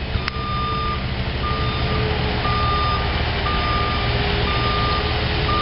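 A construction machine's reversing alarm beeping steadily, about once a second, over its engine running: the machine is backing up.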